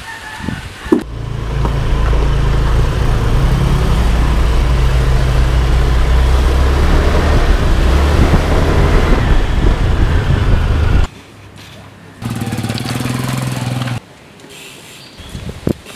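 Motor scooter running steadily at road speed, with wind rushing over the microphone; it cuts off suddenly about eleven seconds in. A few sharp clicks in the first second.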